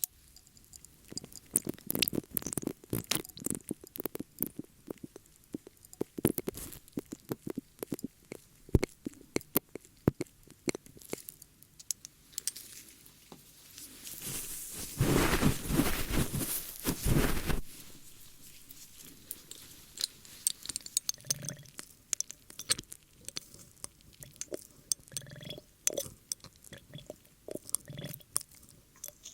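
Close-up ASMR ear-cleaning sounds: scattered crackles, clicks and scratches of a tool worked right against the microphone. About halfway through comes a louder stretch of dense rubbing that lasts a few seconds.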